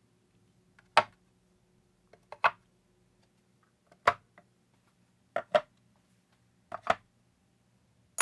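A series of sharp knocks of hard objects, about one every second and a half, several of them in quick pairs, over a faint steady hum.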